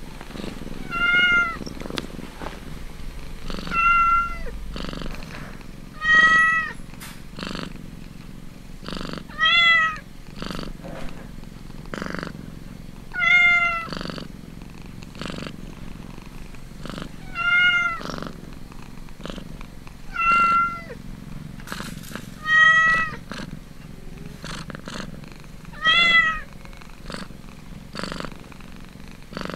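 Cat mewing: about ten short, high mews, each rising and falling slightly, one every three seconds or so, over a low steady purr while kittens suckle.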